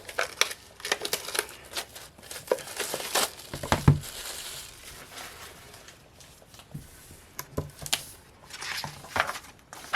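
Packaging crinkling, rustling and tearing as a planner is unwrapped and opened, with scattered taps and knocks of handling.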